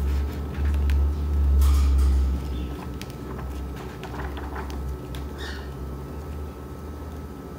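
Pages of a hardcover book of pólen 80 g paper being leafed through by hand, giving a few brief papery rustles. Under them runs a low rumble that is loudest in the first couple of seconds and then drops off.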